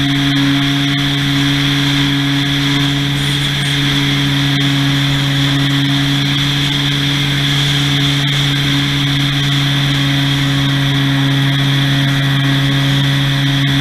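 Propeller plane's motor running at a steady pitch, heard through a camera mounted on the plane, with a constant high whine over airflow noise.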